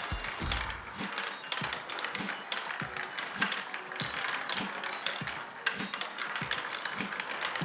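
Wooden marble machine running: marbles clicking and rattling along its wooden tracks and mechanisms in many irregular sharp clicks, with a low rolling rumble in the first second.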